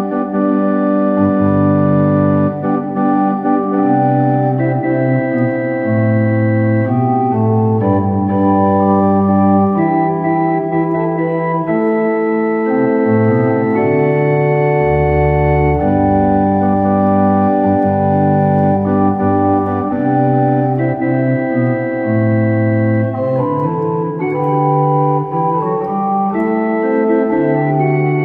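Organ music: slow, sustained chords held for a second or two each before moving to the next, with no singing.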